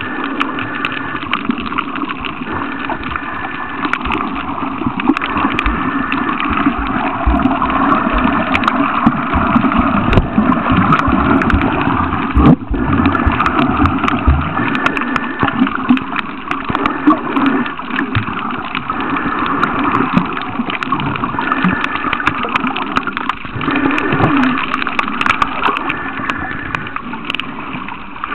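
Muffled rushing and gurgling of water against a camera while snorkelling, with scattered small clicks and one knock about halfway through.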